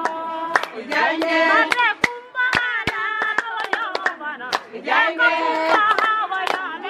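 Several high voices singing together over irregular hand clapping.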